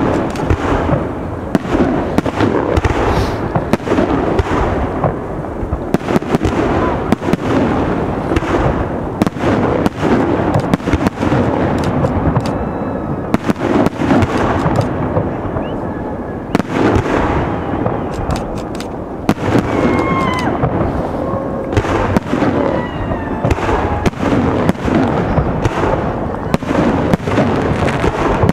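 Aerial firework shells bursting in a rapid, continuous barrage: loud bangs following one another every fraction of a second over a constant rumble and crackle.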